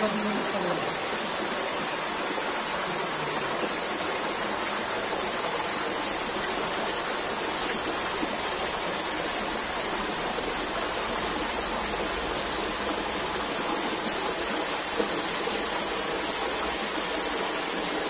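Waterfall pouring down a rock face and splashing into a shallow pool: a steady rush of falling water.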